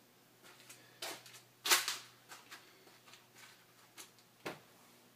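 Irregular knocks, taps and scrapes of hands handling a stripped camper's wooden wall framing and panelling, with a louder knock about two seconds in.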